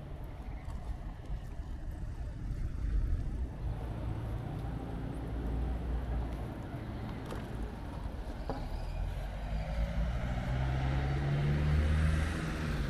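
Town street ambience with a motor vehicle's engine rumble, growing louder toward the end as it draws close and then dropping away.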